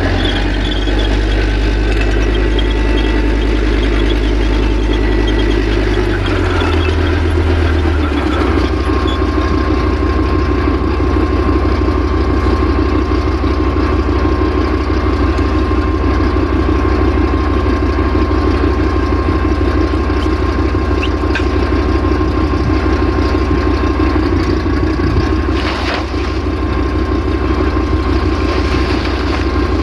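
Heavy military vehicle's diesel engine idling steadily. The engine note shifts about seven seconds in, and a thin steady whine joins soon after.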